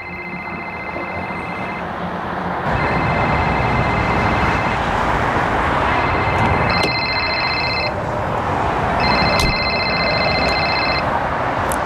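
A mobile phone ringing: a fast trilling electronic ringtone in four bursts of about two seconds each, a second apart, the later bursts higher-pitched. Under it runs the steady noise of motorway traffic.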